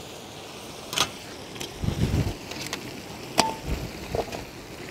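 Live crabs dropped one after another into an iron wok of simmering masala: a series of sharp knocks and clacks of shell against the pan, one of them ringing briefly, with dull thuds in between.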